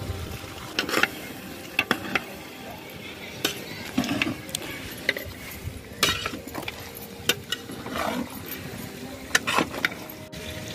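Long-handled metal ladle scraping and knocking against a large metal pot while corn flour is stirred into potatoes, in irregular clicks and scrapes.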